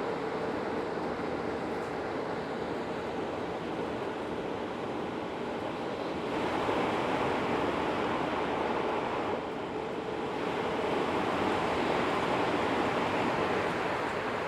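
JR East E5 series Shinkansen running at speed: a steady rushing roar of wheels and air with a faint hum. The roar gets louder about six seconds in, dips briefly near ten seconds, then swells again.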